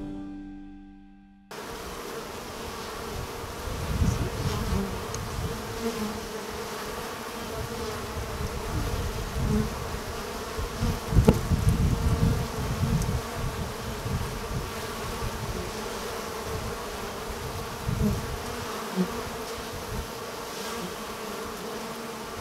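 Honey bees buzzing in flight at a hive entrance: a steady hum of many wings, with irregular low rumbles that swell loudest around the middle.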